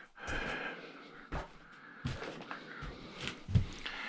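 A handful of short knocks and clatters, a few separate hits about a second apart, the loudest near the end: tools and small metal parts being handled on a workbench.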